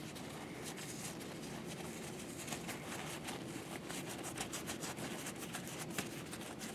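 Paper towel rubbed briskly over a small metal tensioner piece from a Tippmann Boss stitcher, buffing the metal polish off: a quick run of short rubbing strokes, coming thicker in the second half.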